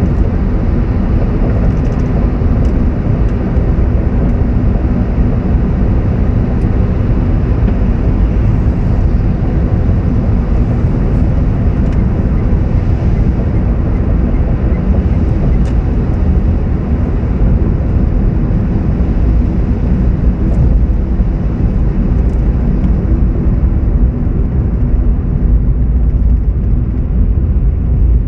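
Steady low rumble of a car on the move: road and engine noise heard from inside the cabin.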